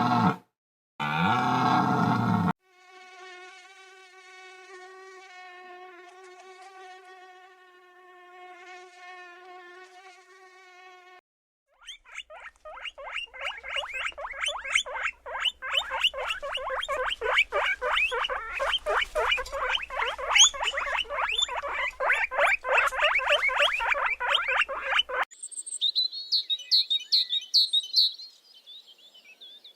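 A succession of animal sounds: a brief deer call, then a mosquito's steady high whine for several seconds, then a long run of rapid guinea pig squeaks, and near the end high chirping from a titmouse.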